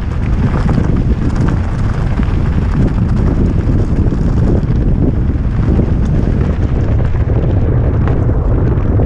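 Heavy wind buffeting on a helmet-mounted camera's microphone during a fast descent, over a steady crunching rattle of bike tyres on loose gravel. No engine can be heard.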